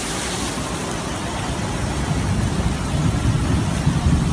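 Steady hiss of heavy rain and rushing floodwater, with a low rumble that grows louder about two seconds in.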